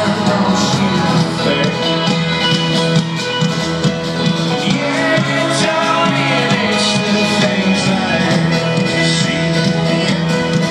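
Live folk-rock band playing an instrumental passage between sung lines: plucked acoustic strings over a steady low beat.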